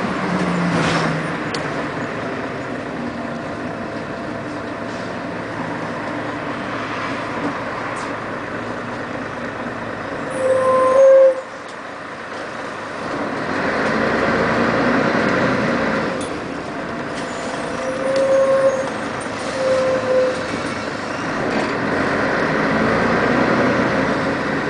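Inside a 1996 Scania CN113CLL city bus on the move: its engine and drivetrain running under way. About halfway a short loud squeal cuts off sharply, then the engine picks up again as the bus pulls on, with two more brief squeals later.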